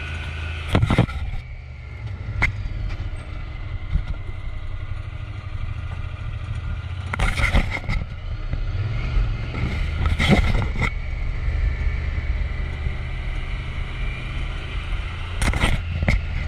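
A vehicle engine running steadily, with a handful of sharp knocks and rattles: one about a second in, a cluster around the middle, and one near the end.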